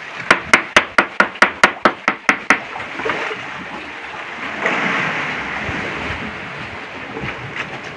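Rapid, even knocking, about four to five knocks a second, which stops about two and a half seconds in. It is followed by a steady rushing of sea water.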